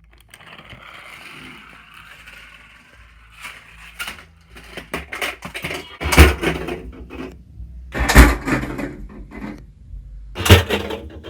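Homemade Rube Goldberg chain-reaction machine running: a low whirr of a toy car rolling at first, then scattered clacks and knocks, and three loud crashes about two seconds apart as parts fall and a pet kennel is pulled down for a loud wake-up noise.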